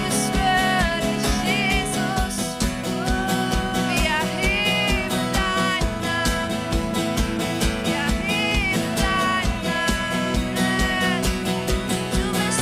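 Worship band playing an instrumental passage of a song, with a steady drum beat under guitar and melodic lines.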